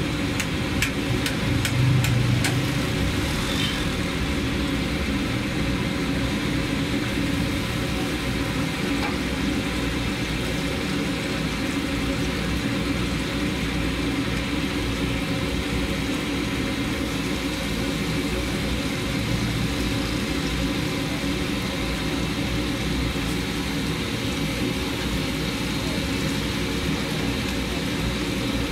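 Chicken pieces deep-frying in a large karahi of bubbling oil, a steady dense sizzle over a low, even engine-like hum, with a few sharp metal clicks in the first few seconds.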